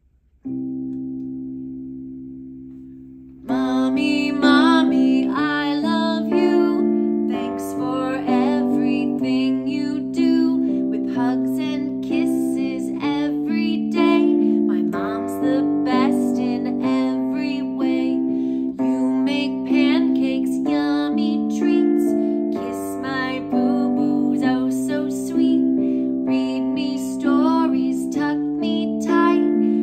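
Piano music: a held chord rings and slowly dies away, then about three and a half seconds in a bouncy, steady-rhythm tune begins, with a woman's singing voice over it.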